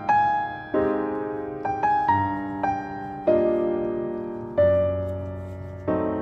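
Background piano music: a slow, gentle tune of notes and chords, each struck and left to fade, a new one about once a second.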